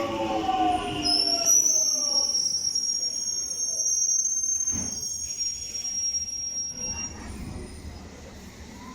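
A train slowing: a whine of several tones falls in pitch over the first couple of seconds. About a second in, a high-pitched wheel squeal sets in, holds for several seconds and fades out near the end.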